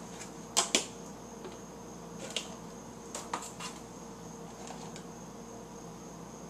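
A few light clicks and knocks from food containers and packaging being handled at a refrigerator, over a steady faint high whine and low hum.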